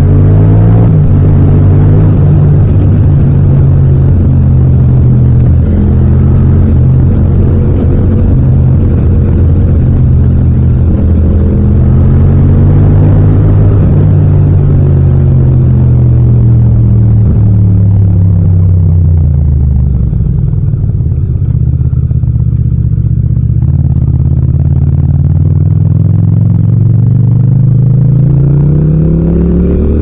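Yamaha MT-07's parallel-twin engine pulling the bike along, heard from the rider's seat. The engine note holds fairly steady with a brief rise, drops away about halfway through as engine speed falls, then climbs again near the end as the bike accelerates.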